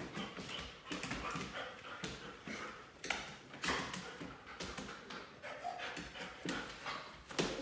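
A dog playing excitedly on a hardwood floor: its claws and paws tap and scrabble on the wood in scattered bursts, with the dog's panting.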